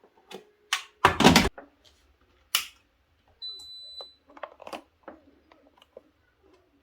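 Electric pressure cooker's control panel giving one steady high beep about three and a half seconds in, as it is being set. Before it comes a loud clunk of handling about a second in, then a click.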